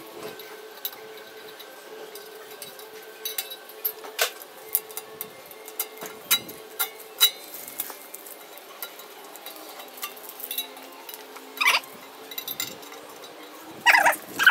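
Small knife tip picking and scraping on a steel saw blade: scattered light clicks and ticks of metal on metal as the masking is worked off the etched logo. A louder, brief sound comes near the end.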